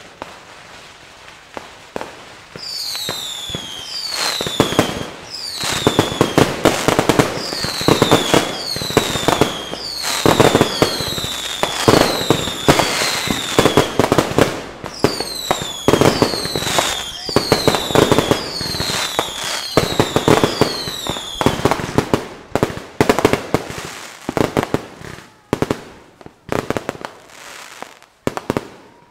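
Aerial fireworks going off in a fast barrage of bangs and crackling, with high whistles that each fall in pitch, about one a second. Near the end it thins to scattered pops and crackles.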